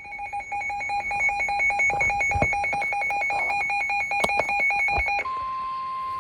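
Emergency alert tones: a rapidly pulsing two-pitch electronic signal for about five seconds, then an abrupt switch to one long steady tone. The steady tone is the National Weather Service warning alarm tone that comes before a spoken weather warning.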